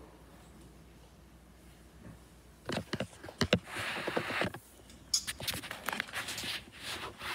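Handling noise from a phone or tablet being picked up and carried: after a few quiet seconds, an irregular run of taps, knocks and rubbing against its body.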